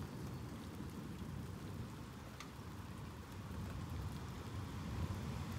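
Steady rain falling in a thunderstorm, with a low rumble underneath that grows stronger near the end.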